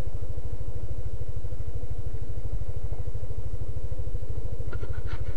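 Yamaha Aerox 155 scooter's single-cylinder engine running steadily at low speed, a low, even pulsing.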